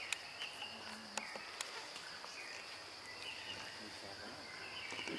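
Forest insects keeping up a steady high-pitched drone, with short repeated chirps and a few faint clicks over it.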